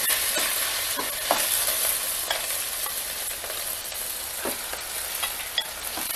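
Ground beef sizzling as it starts to fry in hot oil in an enamel pot, with a metal spoon scraping and tapping as the meat is scooped in from a glass bowl and stirred, a few separate clinks scattered through.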